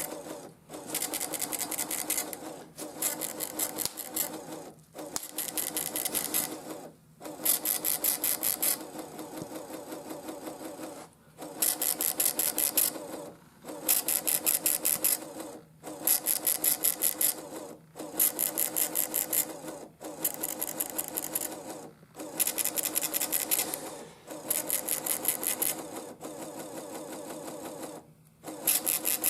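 Built-in printer of a TFT EAS 911 encoder/decoder printing out its alert report line by line: rapid mechanical ticking in passes of about a second and a half, each cut off by a short pause, roughly one pass every two seconds.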